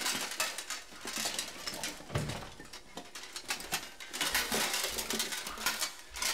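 Plates of a suit of armour clinking and rattling irregularly as the wearer moves about, with a dull thump about two seconds in.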